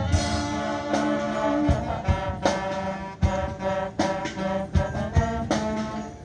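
Marching band playing: brass holding sustained chords over a steady beat of drum hits.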